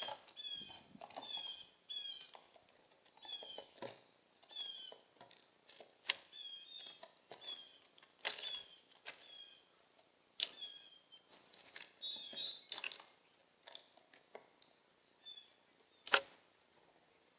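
Backyard songbirds calling: a busy run of short, falling chirps repeated through most of the stretch, mixed with sharp clicks and a thin whistle about halfway.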